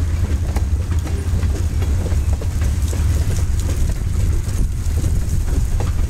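Freight train of covered hopper cars rolling past: a steady rumble with scattered clicks from the wheels on the rails.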